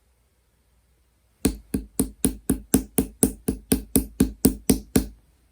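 A quick, even run of about fifteen sharp taps, roughly four a second, each dying away fast, starting about a second and a half in.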